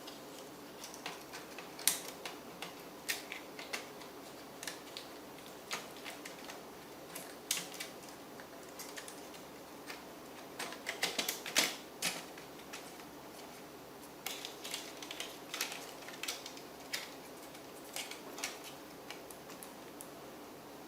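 Small clicks and taps of a laptop being taken apart by hand: plastic and metal parts, screws and tools knocking on the case, irregularly spaced, with a quick flurry of them about halfway through.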